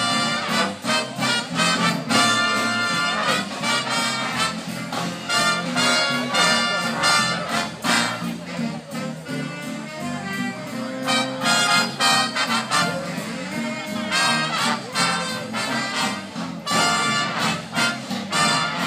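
Big band playing swing jazz, its trumpets and trombones sounding repeated short, punchy chords over a steady rhythm section.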